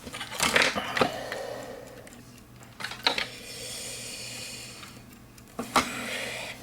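Handling noise of small parts on a workbench: a few sharp clicks and light clatters, with faint rustling between them over a low steady hum.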